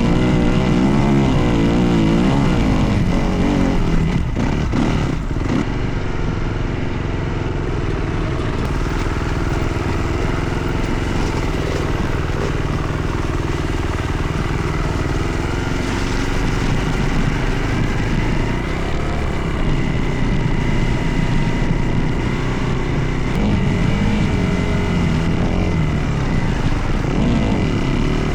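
Dirt bike engine running under riding load, its pitch rising and falling with the throttle and gear changes in the first few seconds and again near the end, steadier in between.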